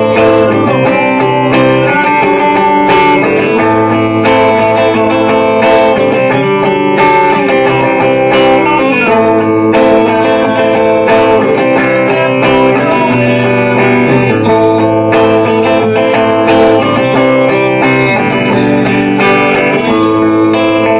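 Rock band music: electric guitar playing chords over a steady beat.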